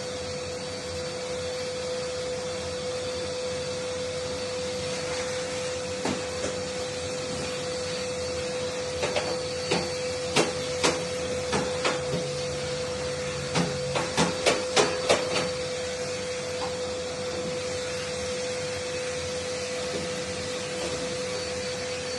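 Vacuum cleaner running steadily with a constant hum. Partway through comes a run of about a dozen sharp clicks or knocks, spread over several seconds.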